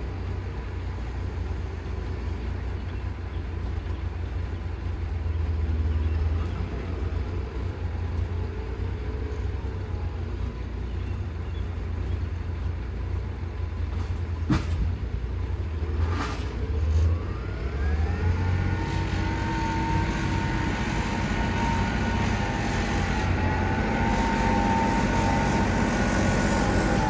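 An engine running with a steady low rumble. Two sharp knocks sound about halfway through, and shortly after the engine's pitch climbs and then holds at higher revs.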